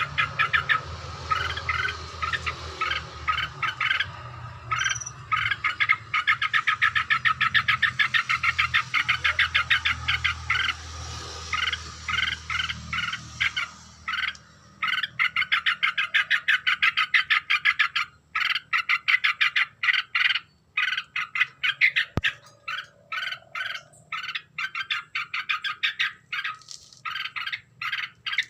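Yellow-vented bulbul (trucuk) calling: rapid chattering runs of repeated notes, over and over, with a low hum underneath for the first half.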